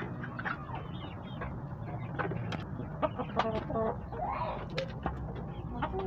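Silkie chickens clucking, with a louder run of calls about halfway through.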